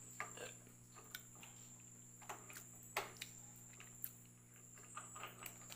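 Faint scattered clicks and taps from a plastic phone-holder clamp and a motorcycle side-mirror stem being handled and fitted onto the handlebar mount, with a few closer together near the end.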